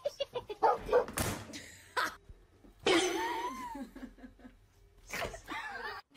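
A dog yelping in short calls, with a few sharp knocks, and a whine that rises and falls about three seconds in.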